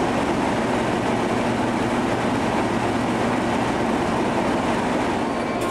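Diesel locomotive idling at the head of a stationary train, a steady engine drone with a low hum.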